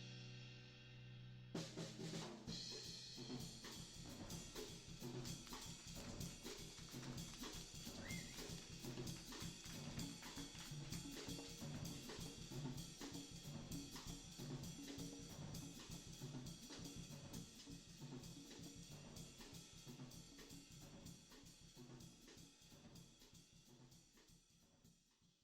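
Background music driven by a drum kit beat, with snare and bass drum over sustained chords; it fades out near the end.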